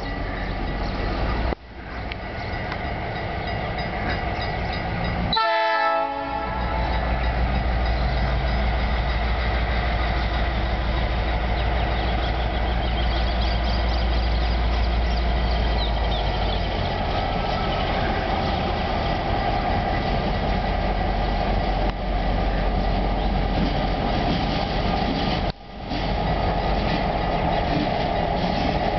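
EMD GR-12W diesel locomotive working as it slowly pulls a long train of ballast hoppers, a steady low engine drone that grows as it approaches, with a short horn sound about six seconds in.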